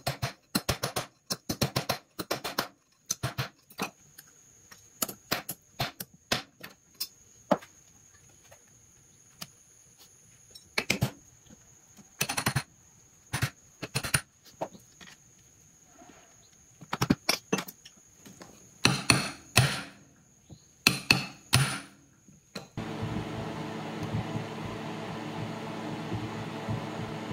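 A ball-peen hammer tapping the steel end cap and tabs of a small brushed DC motor back into place against a metal bar: light, sharp metal-on-metal strikes in quick, irregular clusters, sped up. Near the end the tapping stops and a steady hum takes over.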